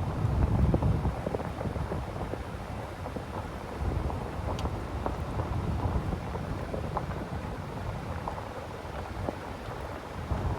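Wind buffeting the microphone: a gusty low rumble that swells and fades, loudest near the start and again near the end, with scattered faint clicks.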